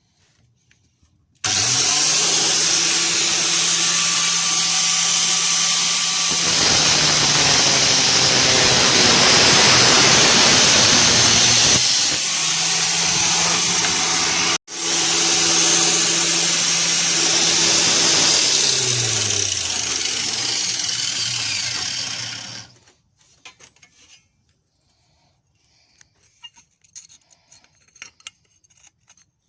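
Angle grinder mounted in a homemade stand: it spins up, runs with a steady whine, and in the middle bites into material with a louder rough rasping noise. Near the end its pitch falls as it winds down and stops.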